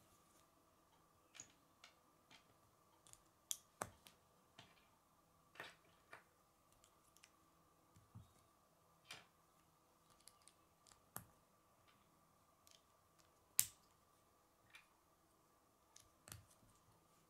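Plastic K'nex connectors and rods clicking and tapping as they are handled and snapped together: scattered faint clicks, the sharpest one about three-quarters of the way through.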